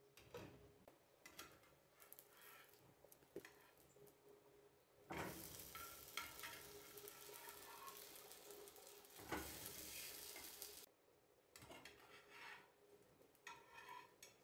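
Cabbage fritters sizzling in oil in a frying pan, with a plastic spatula scraping and tapping against the pan as they are turned. The sizzle swells louder for about six seconds in the middle, then dies back to scattered crackles and scrapes.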